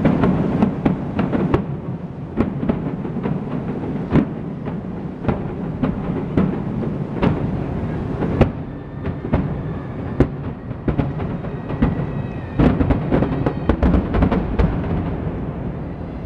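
Fireworks display: aerial shells bursting one after another in sharp, echoing bangs over a continuous low rumble, with the bursts coming thicker toward the end.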